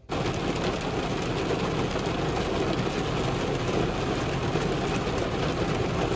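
Heavy rain pelting a car's roof and windshield: a dense, steady patter.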